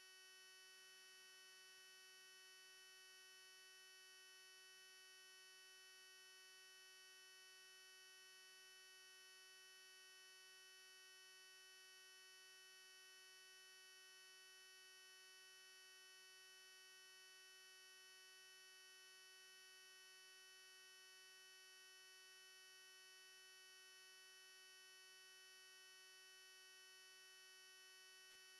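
Near silence with a faint, steady electrical hum made of several constant tones.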